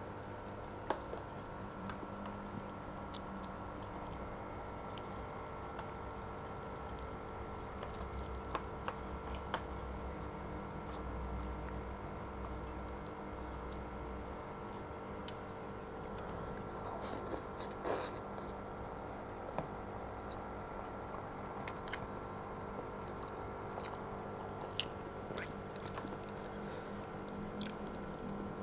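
Someone eating chicken noodles: quiet chewing with scattered sharp clicks and a brief louder spell of eating noise about 17 to 18 seconds in, over a steady electrical hum.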